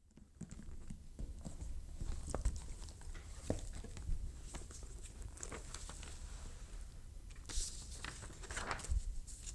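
A book and papers being handled on a desk: scattered soft knocks and clicks over a low steady hum, with paper rustling twice near the end.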